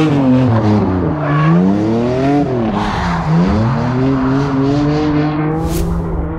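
A drift car's engine revs rise and fall several times as it slides sideways, mixed with tyre squeal. Later the revs hold fairly steady, and a short sharp noise comes near the end.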